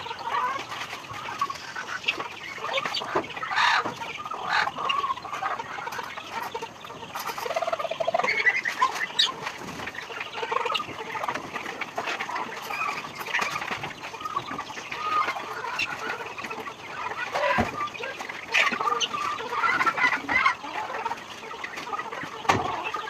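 A flock of native chickens clucking and calling continually while feeding, with scattered short clicks.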